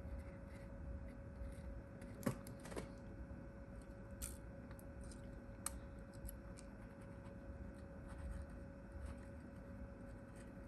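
Faint, scattered light clicks and taps of a phone and small repair tools being handled, over a steady faint hum.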